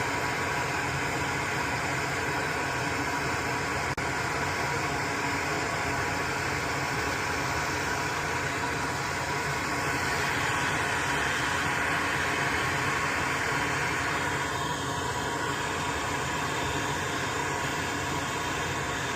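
Steady hiss with a faint hum running throughout, the sound of a fan or blower kept on at the bench.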